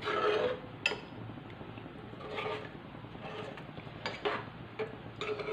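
A spoon stirring thick lentil dal in a pot: soft wet swishes with a few sharp clinks of the spoon against the pot, one about a second in and a couple more around four seconds in.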